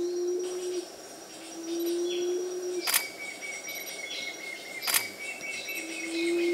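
Forest sounds: a low steady tone held about a second and a half and repeated, thin high steady tones and a few short chirps, and two sharp clicks about two seconds apart.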